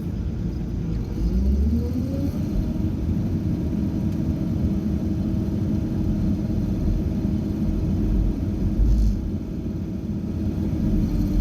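Heavy construction machine's diesel engine running with a low rumble. Its pitch rises about a second in, then holds steady.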